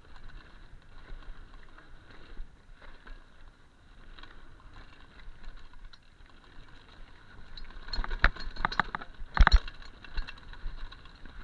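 Mountain bike riding fast down a dirt singletrack: a low rumble of tyres on dirt with a light rattle from the bike. From about eight seconds in comes a run of sharp clattering knocks as the bike goes over rough ground, loudest near the end.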